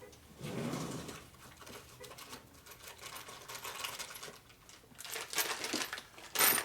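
Small metal engine parts being handled on a workbench: light scattered clinks and rattles, with a sharp metallic clink near the end.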